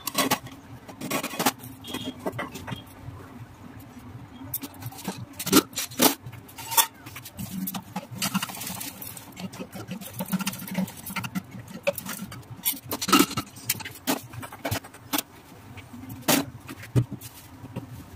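Metal cookware being handled at a gas stove: pots, lids and utensils knocking and scraping, with a few sharp clanks now and then over a low steady hum.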